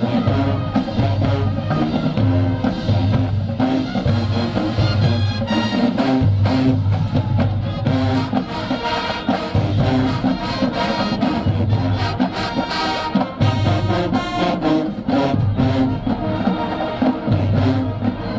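Marching band playing, brass and drums over a steady pulsing beat.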